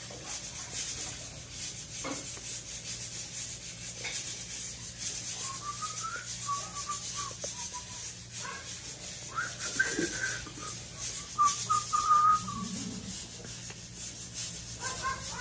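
A person whistling a few short notes, on and off from about five seconds in until near the end, over steady rubbing noise, with a few light clicks of a fork against a plastic food container.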